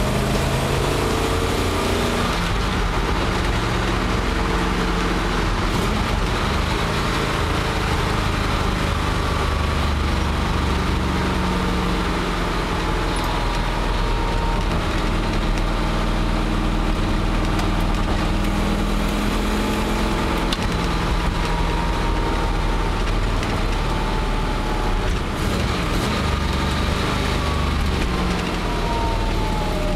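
A 1962 Cadillac's 390 V8 cruising, heard from inside the cabin as a steady engine drone with road noise. Near the end the engine note falls as the car slows.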